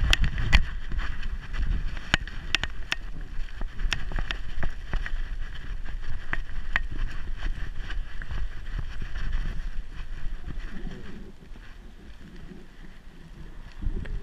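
Handling noise from a GoPro strapped to a Staffordshire bull terrier's back as she moves: a low rumble and buffeting with scattered sharp clicks and knocks. The clicks come thick in the first half and thin out, and the rumble drops lower over the last few seconds.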